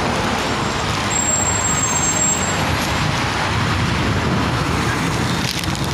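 Steady city street traffic noise with a city bus running close by. A thin high whine sounds from about a second in for just over a second.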